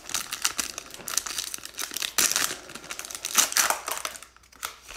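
Foil wrapper of a Topps baseball card pack crinkling and tearing as it is opened and the cards are pulled out. The crackle stops about four seconds in.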